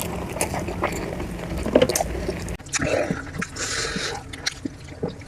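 Close-miked eating: a person biting and chewing mutton leg meat with curry and rice, with many quick wet mouth clicks. About two and a half seconds in, the sound cuts abruptly to another take and a low background hum drops out.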